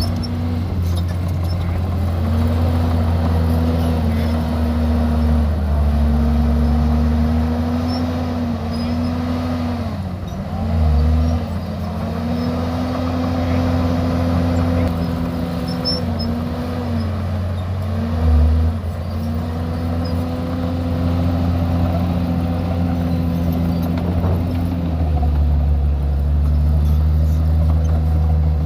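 Heavy diesel engine of earthmoving machinery running steadily. Its pitch sags briefly and recovers twice, about ten and eighteen seconds in.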